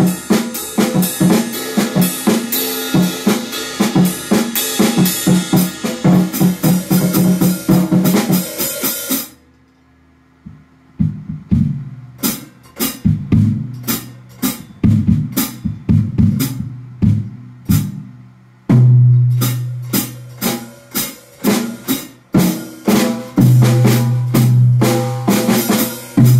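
Acoustic drum kit (Pearl Roadshow with Zildjian and Sabian cymbals) played freestyle: a busy beat of kick, snare and cymbals that stops suddenly about nine seconds in. After a short gap come sparser drum hits that build back into full playing near the end.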